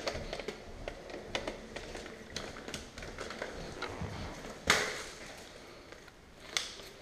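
Quick footsteps and rattling kit on a hard floor as a player moves along a corridor, a run of irregular taps and clicks. A louder sharp knock comes about two-thirds of the way through and another near the end.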